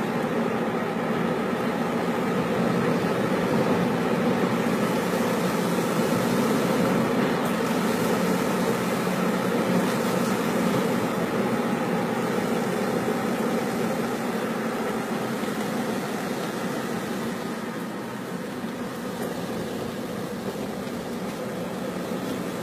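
Steady road and engine noise heard from inside a moving car's cabin, easing slightly in level over the last several seconds.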